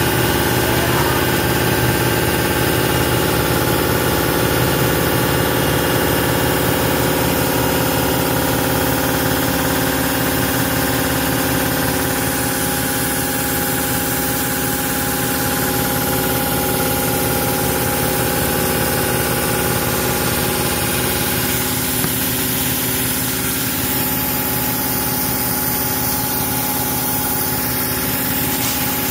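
Industrial machinery running steadily: a constant mechanical drone made of several held tones over a fast, fine rattle.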